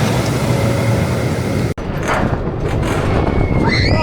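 Steady rumbling noise of a roller coaster ride in motion, which drops out for a moment about two seconds in.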